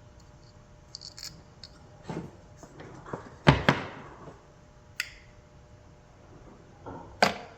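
Hot stapler and plastic airbox being handled while a wave staple is set: scattered light clicks and knocks, the loudest a sharp knock about three and a half seconds in, with another near the end.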